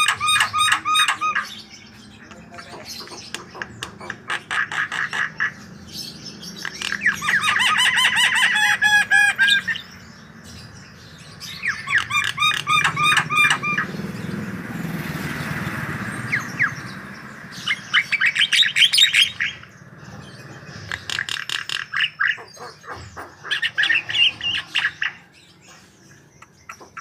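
Javan myna (jalak kebo) singing in repeated bouts of rapid, harsh chattering: clicks mixed with squeaky notes in phrases a second or two long, with short pauses between them. A rushing hiss lasts a few seconds around the middle.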